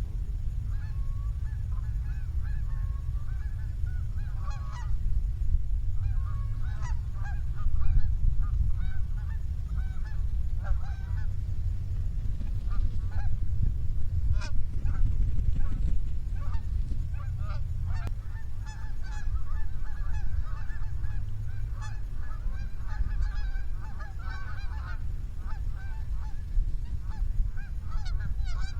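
A flock of geese honking, many short calls overlapping and going on steadily, over a constant low rumble.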